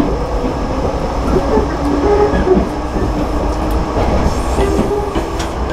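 Interior running noise of a Tobu Ryomo limited express electric train: a steady low rumble from the running gear. Short steady tones come and go over it, with a few faint clicks.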